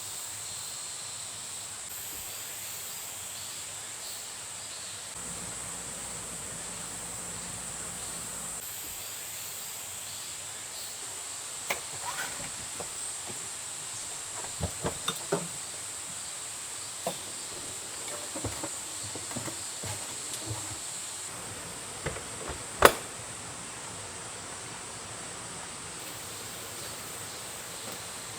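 Forest ambience with a steady, high-pitched insect chirring. Scattered light clicks and knocks begin about twelve seconds in, and the loudest is a single sharp click a few seconds before the end.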